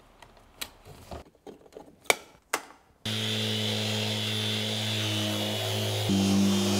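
A few clicks and knocks as the extraction hose is fitted to a Bosch random orbital sander, then about three seconds in the sander and its dust-extraction vacuum switch on abruptly and run steadily, a hum over a hiss, sanding the fibreglass deck. About six seconds in the tone shifts and gets a little louder.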